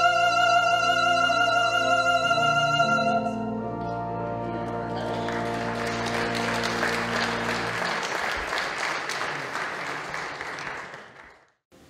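A woman's solo singing ends on a long held note with vibrato over sustained accompaniment chords, which ring on and fade out. A congregation applauds from about four seconds in, and the sound cuts off abruptly near the end.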